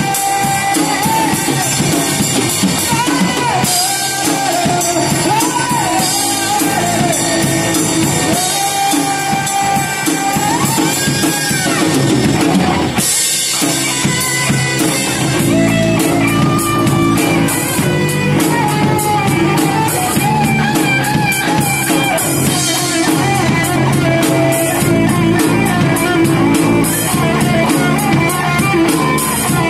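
Live rock band playing electric guitars and a drum kit, with a melodic guitar line over the band. The music breaks off for a moment about halfway through, then comes back in fuller with the drums driving.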